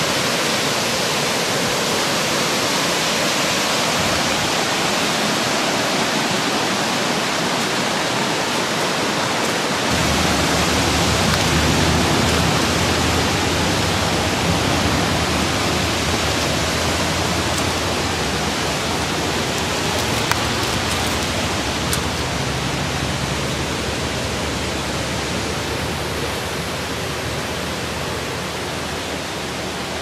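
Steady rushing of water from nearby waterfall cascades, an even hiss; a deeper rumble joins about a third of the way in.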